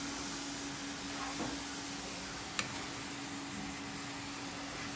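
Zongzi filling sizzling and frying in a wok, a steady hiss with a steady hum underneath. A single sharp click about halfway through, with a fainter knock shortly before it.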